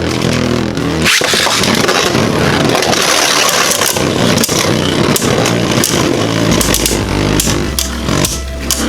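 Two Beyblade Burst spinning tops, Revive Phoenix and Vise Leopard, spinning and grinding against each other in a plastic battle stadium: a continuous whirring scrape broken by many sharp clacks as they collide.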